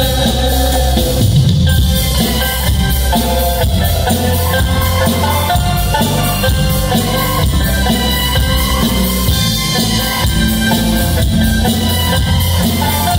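Okinawan sanshin music played live through a PA system: plucked three-stringed lute melody over a drum and bass accompaniment.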